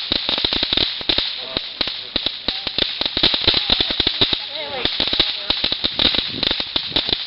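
Fireworks crackling: a dense, continuous run of sharp pops and snaps, many each second.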